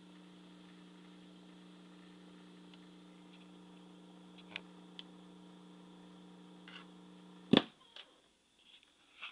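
Sony TC-105A reel-to-reel tape recorder's transport running with a steady low motor hum, the tape counter winding down, with a couple of light ticks. About seven and a half seconds in, a loud mechanical clunk stops the motor, followed by a few small clicks.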